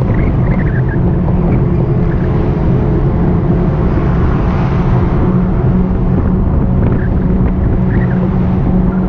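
Steady riding noise from an e-bike ride: wind and road rumble on the microphone, with a steady low hum.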